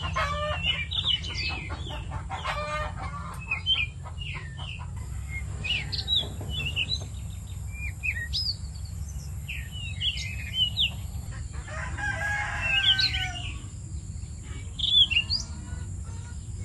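Farmyard birdsong: small birds chirping again and again, with chickens calling now and then, over a steady low rumble.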